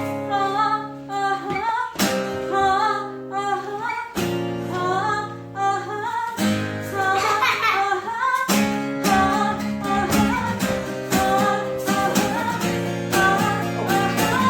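Acoustic guitar strummed, its chord changing about every two seconds, under a woman singing.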